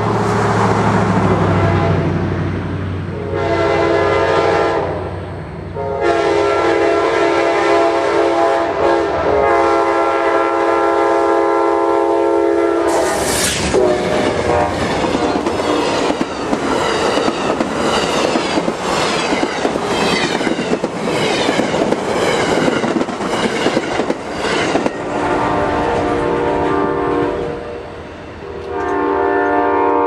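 Amtrak P42DC locomotive's Nathan K5LA air horn sounding a played-out sequence: a short blast, then one long chord. The train then rushes past with its passenger cars' wheels clacking over the rail joints in a steady rhythm. Near the end the horn sounds again in two more blasts.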